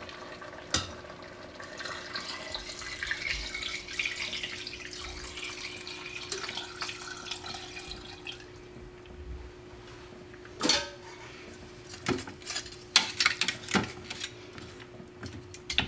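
Beef broth poured from a glass measuring jug into a stainless steel Instant Pot inner pot over short ribs, a steady splashing trickle for several seconds. In the last few seconds a utensil knocks and scrapes several times against the metal pot.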